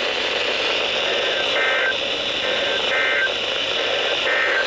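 Three short bursts of EAS SAME digital data tones, evenly spaced about a second and a half apart. They are the end-of-message signal closing a weather-radio warning, heard over a steady hiss of radio static.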